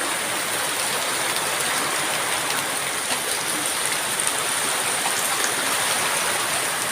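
Steady downpour of rain, an even hiss of falling water throughout.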